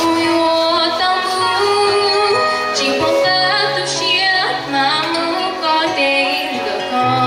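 A woman singing a pop song with instrumental accompaniment, her held notes wavering in vibrato over steady bass notes.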